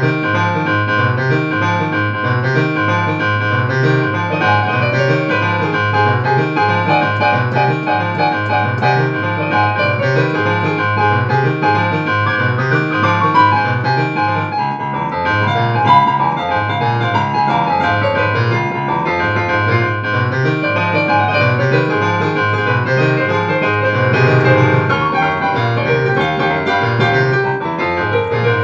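Background instrumental music led by a keyboard, with a repeating low bass pattern under busier notes above.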